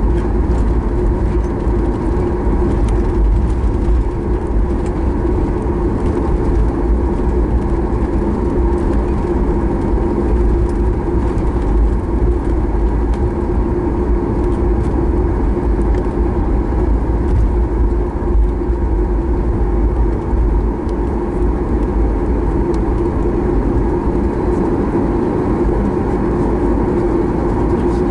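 Steady cabin noise inside a Boeing 737 MAX 8 taxiing at low speed. Its CFM LEAP-1B engines at taxi idle give an even hum with a held tone over a deep rumble, with a few faint rattles on top.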